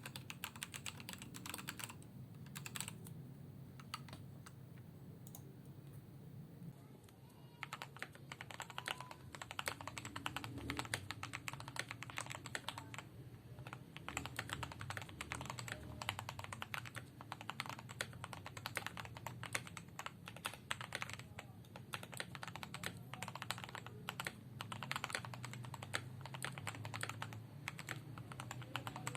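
Continuous typing on an Attack Shark K98 mechanical keyboard with red linear switches: a steady patter of key clicks and bottom-outs. At first the board is stock. Then, after the typing thins out for a few seconds, it resumes about seven seconds in on the modded board, with foam and tape-modded case, Krytox 205g0-lubed switches and dielectric-greased stabilizers.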